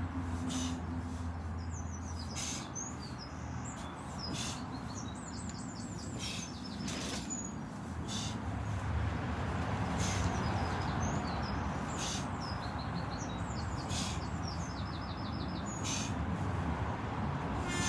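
Birds chirping in quick runs of short, high notes over a steady low background rumble, with a brief high hiss about once a second.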